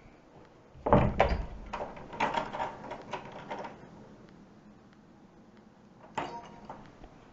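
Knocks and clatter: a thud about a second in, then a couple of seconds of clicks and rattles, and another knock near the end.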